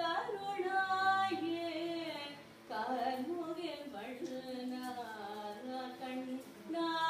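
A woman singing a devotional song solo, holding long notes that slide and bend in pitch, with a brief breath pause about two and a half seconds in.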